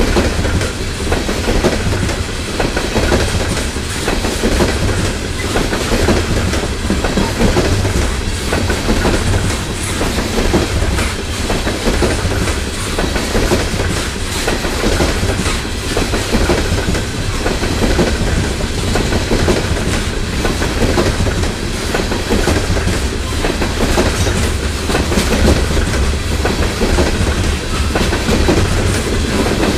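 Coal hopper cars of a freight train rolling past close by: a steady heavy rumble with wheels clacking continuously over the rails.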